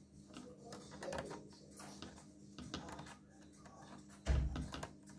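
Scattered faint clicks and taps of small tools and plastic laptop parts being handled during disassembly, with one dull thump about four seconds in.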